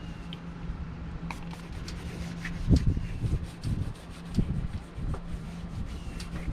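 Scattered clicks, rubbing and a few dull knocks, the loudest about three seconds in, over a steady low hum.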